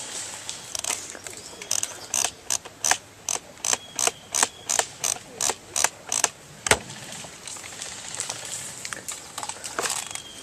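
Ratcheting clicks from winding the thumb wheel of a high-capacity magazine on a JG M4 airsoft rifle, about two or three clicks a second, thinning out after about seven seconds.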